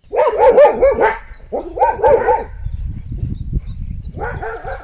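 A dog barking in three short runs of quick, yappy barks, the last near the end, over a low rumble.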